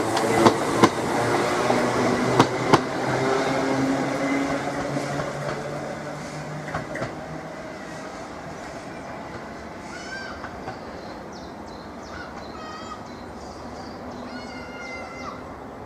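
A train passing and moving away, its wheels clicking in pairs over rail joints and a steady engine or traction hum fading out over several seconds. Birds chirp faintly in the second half.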